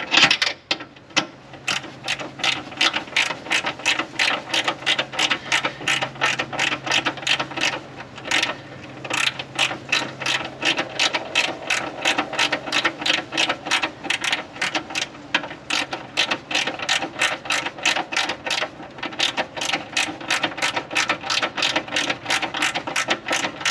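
Hand ratchet clicking steadily, about three clicks a second, as it runs bolts down to snug the carbon fiber engine bay covers, with a short pause about eight seconds in.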